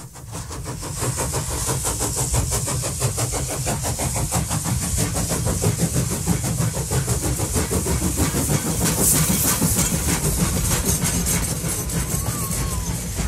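A train running: a rapid, regular clatter over a low rumble and a high hiss, fading in over the first second.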